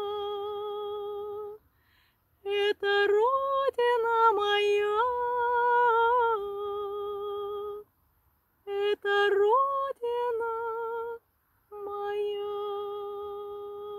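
A woman singing unaccompanied: four phrases of long, steady held notes, with short silent breaths between them.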